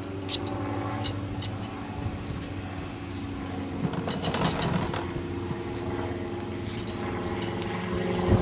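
Tennis balls tumbling from a wire ball-pickup basket into a ball machine's plastic hopper, a cluster of quick knocks about four seconds in, over a steady low hum.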